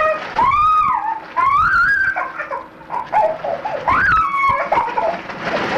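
Puppy whimpering: a series of high-pitched whines that rise and fall, several in a row.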